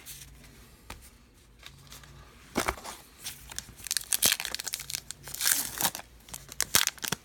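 A trading-card pack wrapper being torn open and crinkled by hand: a string of sharp crackling tears starting about two and a half seconds in, after a quiet start.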